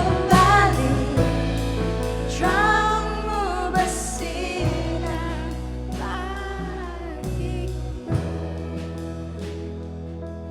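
Worship band playing a slow gospel song with sung vocals over sustained bass, keys and drums, growing gradually softer.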